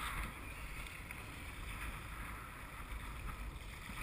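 Steady, muffled wind and water noise with a low rumble, picked up by a GoPro on a towable tube bobbing on the sea.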